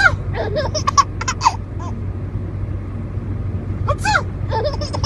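A baby laughing in short, bubbling bursts, with a sudden sneeze about four seconds in that sets off more laughter. A steady low hum runs underneath.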